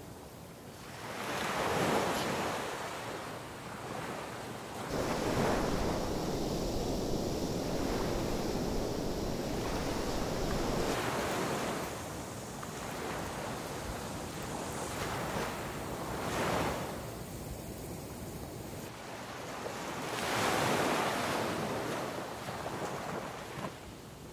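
Sea surf washing onto the beach, swelling and easing several times, with wind buffeting the microphone.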